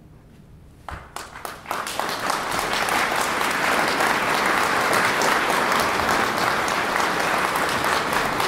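Audience applauding: a few scattered claps about a second in that quickly swell into full, steady applause from a large seated crowd.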